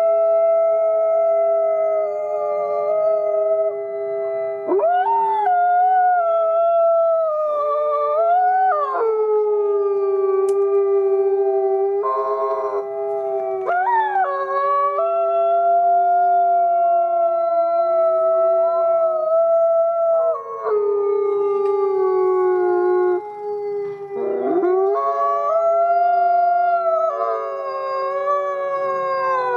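A chorus of gray wolves howling, several long, held howls at different pitches overlapping one another. Now and then a voice breaks off and a new howl slides sharply up into its note.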